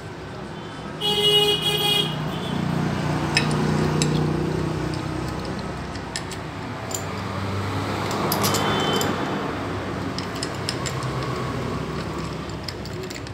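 Road traffic: a vehicle horn honks loudly for about a second early on, and again more faintly around eight seconds, over the steady rumble of passing engines. Scattered light metallic clicks come from clutch bolts and springs being handled.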